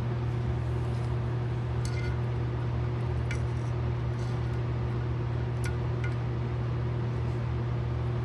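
A steady low machine hum with a few light metallic clinks of small carburetor parts being handled with a screwdriver, four times at irregular intervals.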